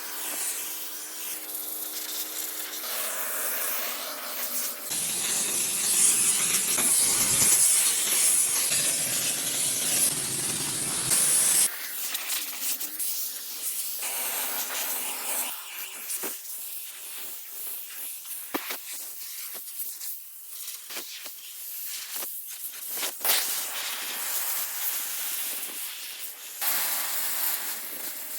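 Car interior detailing equipment at work. A loud, high hiss of a spray or steam jet runs for about seven seconds and cuts off suddenly, followed by rubbing and scrubbing with scattered clicks.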